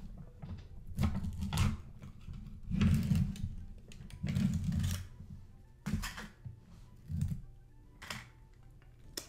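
Plastic yogurt tub being opened by hand, its lid and inner seal worked off. It gives a string of separate crinkles, scrapes and taps that grow quieter toward the end.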